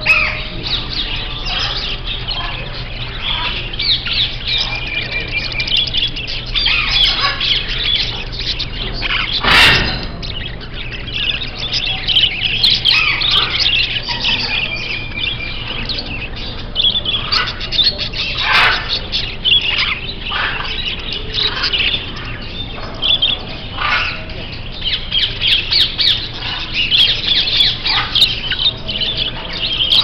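Many caged birds, small parakeets and finches among them, chirping and squawking all at once in a constant dense chatter. A single sharp knock cuts through about ten seconds in.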